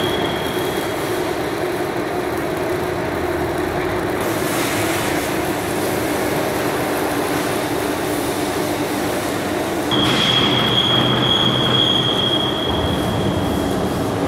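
Steady workshop machinery noise with a running hum. A high, steady whine comes in about ten seconds in and fades out near the end.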